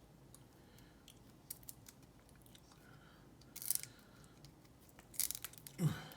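Faint handling of a padlock key: scattered small metallic clicks and taps, with brief scraping rustles about three and a half seconds in and again shortly before the end.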